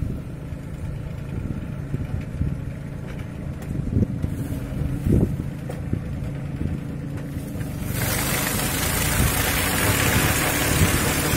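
Small engine running steadily as it drives a walk-behind field machine whose perforated steel drums churn through the soil. About eight seconds in, a loud steady hiss suddenly joins it.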